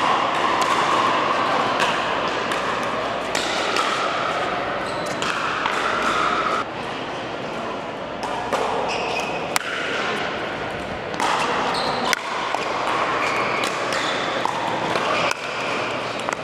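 Pickleball paddles striking plastic pickleballs, heard as scattered sharp pops, over a steady murmur of voices.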